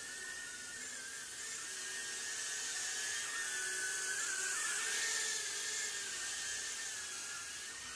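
Eachine E010 micro quadcopter's tiny motors whining at a high pitch in flight. The pitch wavers throughout, with a short dip a little past halfway.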